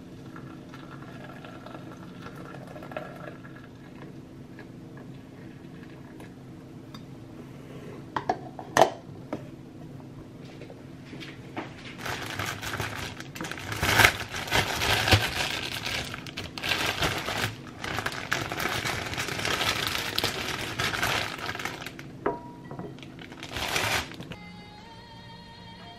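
Thin plastic bread bag crinkling and rustling loudly for about ten seconds as it is opened and slices of bread are pulled out, with one more rustle near the end. A single sharp clink comes a little before the rustling starts. Soft background music plays throughout.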